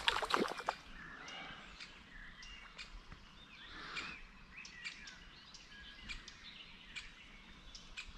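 Birds chirping faintly in short scattered calls over a quiet outdoor background, after a brief noisy burst right at the start.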